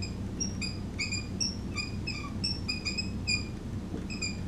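Dry-erase marker squeaking on a whiteboard while writing a word: a quick, irregular series of short, high squeaks, with a brief pause near the end.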